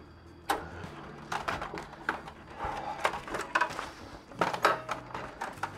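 A bar's cash register drawer being worked as money is taken out: an irregular run of clicks, knocks and rattles.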